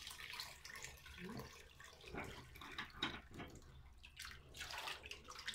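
Tap water running into an enamel pot while a hand swishes precooked pozole hominy to rinse it, with irregular splashing and trickling.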